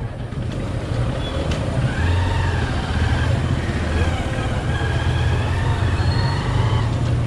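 Hero Hunk motorcycle's 150 cc single-cylinder engine pulling away and picking up speed, its note growing stronger about two seconds in and then running steadily.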